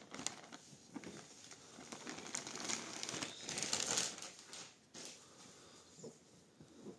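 Clear plastic bag crinkling and rustling as a folded polyester football jersey is slid out of it, loudest about three to four seconds in, then a few soft rustles as the shirt is handled.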